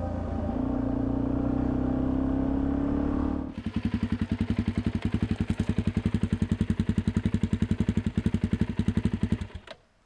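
Suzuki DR-Z400E's single-cylinder four-stroke engine running steadily, then settling to an idle that beats evenly, about ten times a second. Near the end it is switched off and cuts out.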